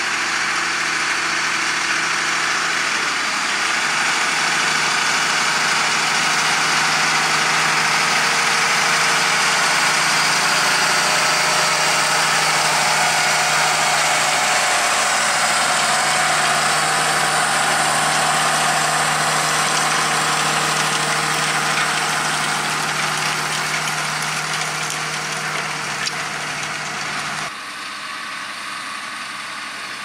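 John Deere 8RX 410 tracked tractor's six-cylinder diesel engine running steadily under load while pulling an eight-furrow plough through the soil. It gets louder a few seconds in, and near the end the sound drops suddenly to a quieter level.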